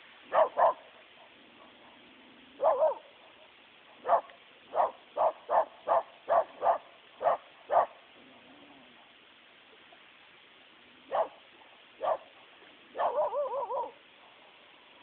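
Shiba Inu alarm-barking at a passing ferry: two quick barks at the start, a longer bark at about 3 s, then a rapid run of about ten barks. After a pause come two more barks and a longer wavering call near the end.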